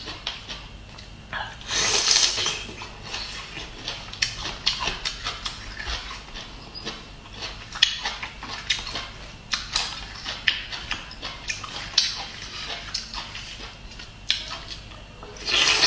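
Close-up chewing of bamboo shoot: many short crunches and wet mouth clicks, with two louder bursts of bite or slurp noise, about two seconds in and near the end.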